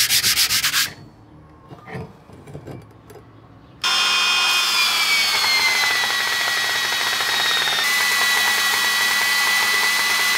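Sanding block rubbed in quick strokes over a cast-iron scraper plane body, stopping about a second in. About four seconds in, a belt sander starts and runs steadily while a steel part of the plane is ground against its belt; its whine dips slightly in pitch over the next two seconds and then holds.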